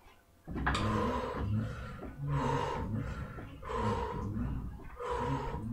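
A woman working a Gazelle glider in short core strokes: a hoarse, pitched strained sound repeats about every one and a half seconds, once per stroke, starting about half a second in. It comes either from her forced exhaling or from the glider's frame creaking.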